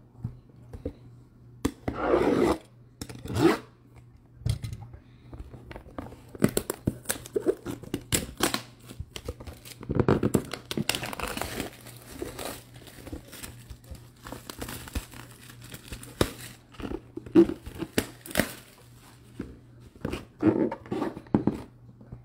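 Plastic shrink wrap on a cardboard box crinkling and tearing as the box is handled, in irregular bursts.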